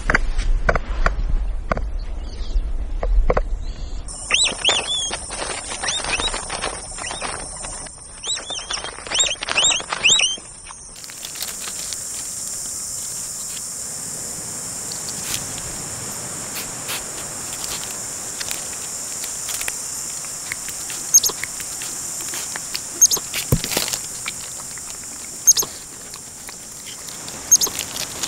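Capybara clicking, then a run of short, squeaky chirps for several seconds. After a cut, a steady high insect buzz with scattered clicks and a few sharp, high chirps.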